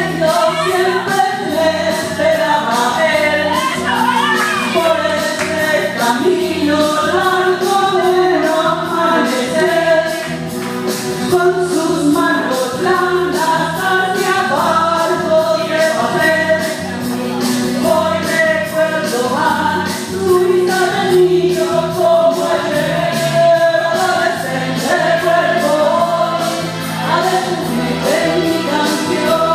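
A woman singing into a microphone through a PA speaker, over backing music with a steady beat.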